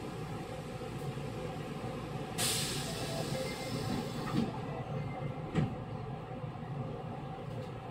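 Interior sound of a refurbished Osaka Metro 66 series train car: a steady low rumble, with a short burst of air hiss about two and a half seconds in and a single knock a little after five and a half seconds.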